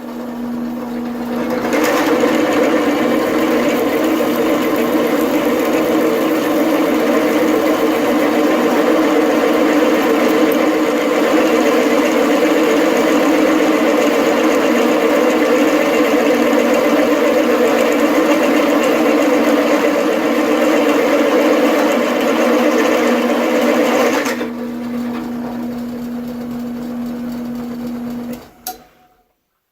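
Drill press driving an 11/16-inch Silver & Deming bit into 3/4-inch steel. The motor hums steadily. About two seconds in, the loud, rough noise of the bit cutting the steel begins and runs for some twenty seconds. It then drops back to the motor's hum alone, which stops shortly before the end.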